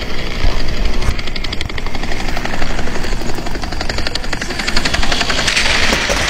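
Model railway train running on the layout's track close by: a small electric motor's whir with a fast, even clicking of wheels on the rails.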